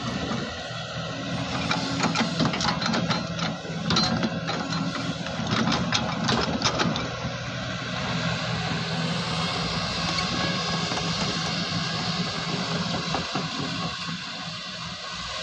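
Excavator diesel engine running steadily, with a run of clanks and knocks from digging from about one and a half to seven seconds in.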